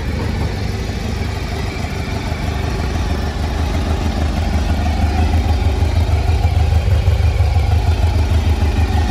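Honda RC30 (VFR750R) 748 cc V4 engine idling steadily with a deep, even rumble that grows a little louder in the second half.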